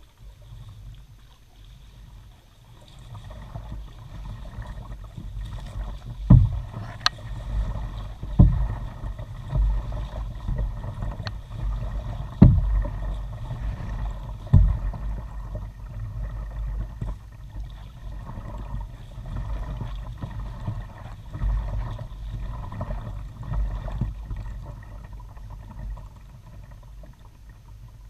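Kayak being paddled along a calm creek, heard through a bow-mounted camera: a steady low rumble of water moving along the hull. A handful of sharp knocks stand out, starting about six seconds in.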